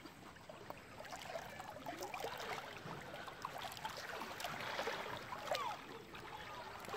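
River water sloshing and gurgling as a man wades chest-deep through it and sweeps it aside with his arms, growing louder toward the middle.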